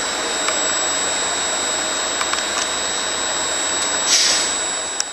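Diesel railcar FUC AD 803 idling at a standstill: a steady engine hum with a thin high-pitched whine over it and a few light clicks. A short hiss comes about four seconds in, and the sound fades down at the end.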